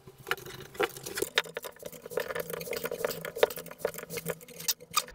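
Light metallic clicks and scrapes of gloved hands handling a steel brake line and its small fittings, irregular and continuous, over a faint steady hum.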